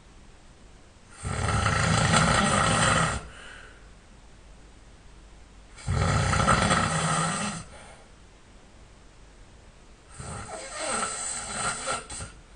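A sleeping man snoring loudly: three long snores, each about two seconds and roughly four and a half seconds apart, the last one weaker and more uneven.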